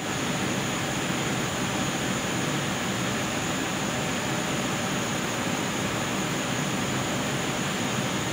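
Flexographic printing press running at speed, its rollers drawing printed plastic bag film through, with an even, unbroken mechanical noise.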